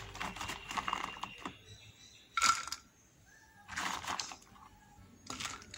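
Fresh green chillies rustling and clicking against each other and a plastic basket as a hand sorts through them, in a few short irregular bursts with quiet gaps between.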